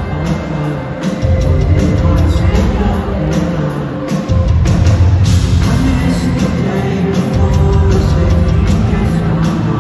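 Pop-rock band playing live on a concert PA, recorded from the crowd: drums and electric guitars, with the full band coming in heavier and louder about four seconds in.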